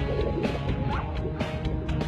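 Background music with a beat and sharp percussive hits.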